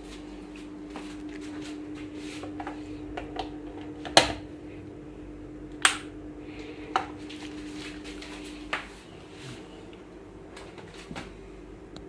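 Sharp clicks and clinks of small hard objects being handled, several louder knocks among them, over a steady hum that stops about nine seconds in.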